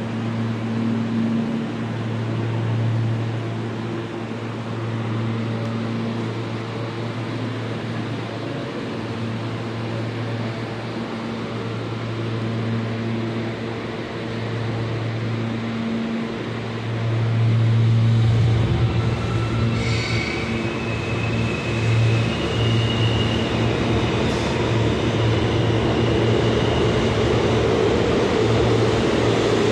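A stopped R160 subway train gives a steady electrical hum in the station. About two-thirds of the way in, train rumble swells and a few brief high-pitched tones sound.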